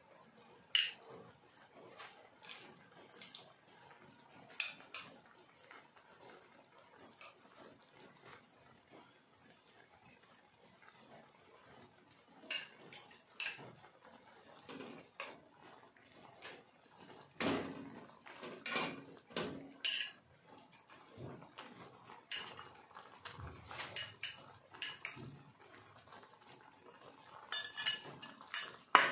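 Metal kitchen utensils clinking and knocking against pots and dishes in scattered taps, sparse at first and busier in the second half, with a few heavier knocks.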